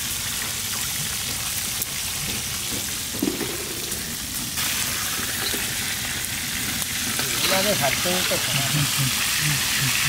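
Wallago fish steaks deep-frying in hot oil in a black iron karahi: a steady sizzle that gets louder about halfway through. A few light clicks come from a slotted spoon stirring and lifting the pieces.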